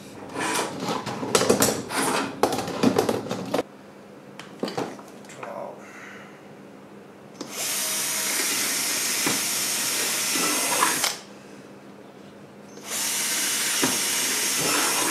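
Rattling and clicking of wire mesh being handled against a plastic bucket. Then a cordless drill runs twice, about three and a half seconds and then about two seconds, boring holes through the plastic bucket's rim.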